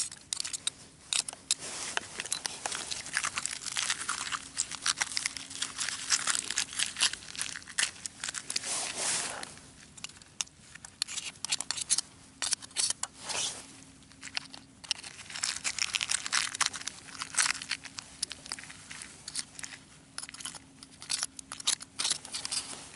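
Oyster shells being pried and knocked off rock: a busy run of sharp clicks, scrapes and crunches that comes in clusters with short pauses between.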